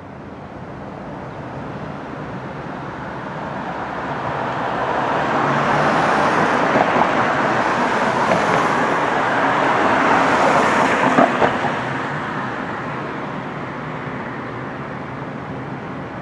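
City street traffic: a vehicle's noise builds, passes close through the middle with a few sharp ticks, then fades.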